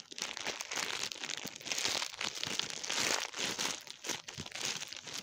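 Plastic bag crinkling and rustling without a break as slime is kneaded and squeezed inside it by hand.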